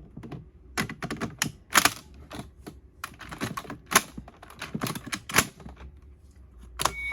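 Irregular hard plastic clicks and knocks from a toy transformation belt buckle being handled, with a few sharper snaps among lighter taps.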